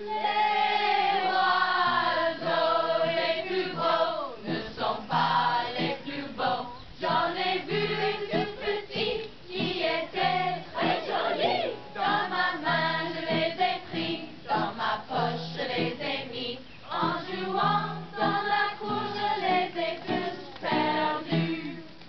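A mixed group of children and adults singing a French song together without accompaniment, phrase after phrase with short breaks between lines.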